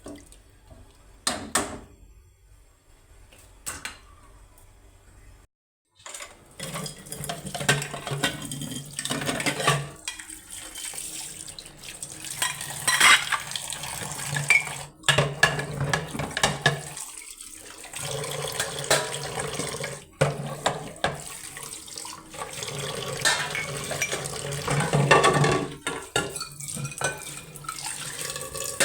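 Metal pots, pans and utensils clattering during kitchen work. About six seconds in, after a brief cut to silence, a steady rushing noise sets in under denser clanking.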